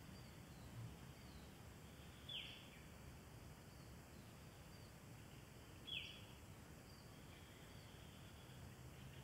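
Two short, high bird chirps, each falling in pitch, about three and a half seconds apart, over faint outdoor background noise.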